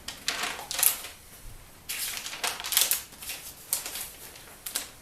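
Paper pages of an owner's manual being handled and turned, in repeated rustling sweeps with small crinkles.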